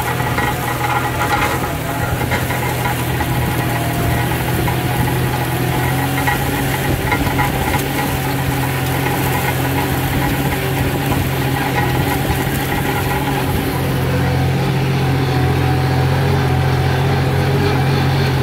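Kubota L4018SP tractor's diesel engine running steadily under load while pulling a rear disc plough through dry field soil.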